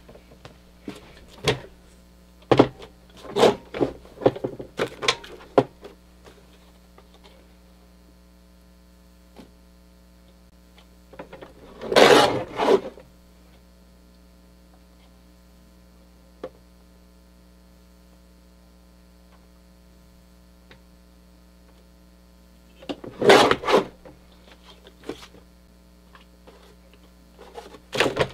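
Lever-arm guillotine paper trimmer cutting strips of thermal pad. Scattered clicks and taps of handling come in the first few seconds, then two louder cuts of the blade arm about ten seconds apart. A steady low electrical hum runs underneath.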